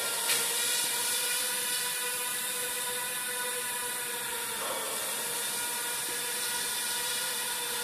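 Mini quadcopter's small motors and propellers whining steadily in flight, a set of steady tones over a high hiss.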